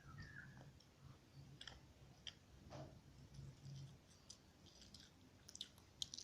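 Faint chewing while eating chicken rice, with scattered small clicks throughout and a sharper cluster of clicks near the end.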